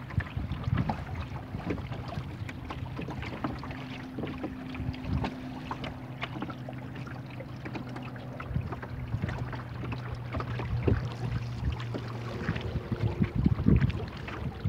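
Water splashing and slapping against the hull of a small wooden rowboat moving under sail, with wind buffeting the microphone. The splashes come irregularly and grow louder near the end, over a steady low hum in the background.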